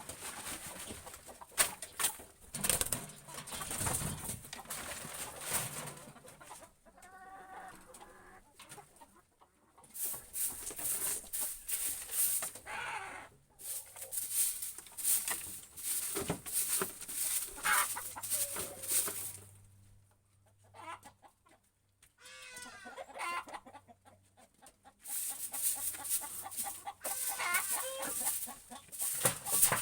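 Domestic chickens clucking, with calls coming in bursts, over many scratchy sweeping strokes of a broom on the floor of the chicken house.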